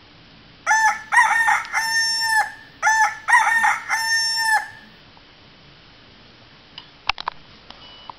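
A rooster crowing twice, two full cock-a-doodle-doo calls back to back, as a morning wake-up sound. A few sharp clicks follow near the end.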